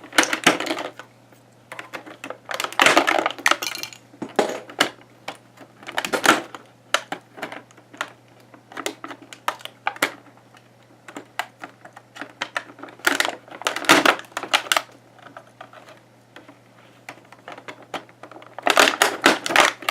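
Plastic toy packaging being handled and the figure's parts snipped free: sharp clicks and snips with bursts of crinkly plastic rustling, coming in irregular clusters.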